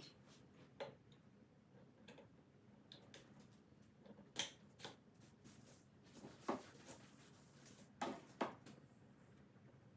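Near silence broken by a few faint, short clicks and taps, several coming in pairs about half a second apart.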